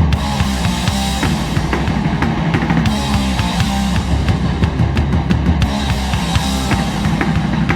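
Hardcore punk band playing the instrumental opening of a song, with fast, driving drums and loud guitars and bass.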